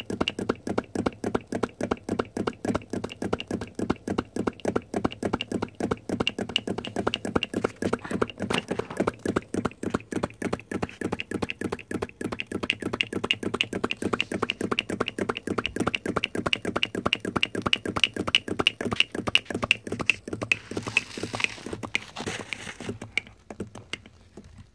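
Homemade brass-cylinder flame licker (vacuum) engine running, with a fast, even ticking beat. Near the end the beat weakens and dies away as the engine, overheated, stalls.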